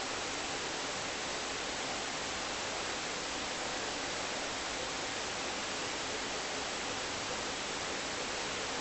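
Steady, even hiss with no snore or other event in it: the background noise of a snoring recording between snores.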